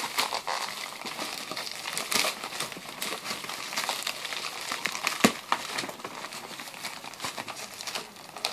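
Plastic packaging crinkling and crackling as it is handled, with irregular sharp crackles and one louder click about five seconds in.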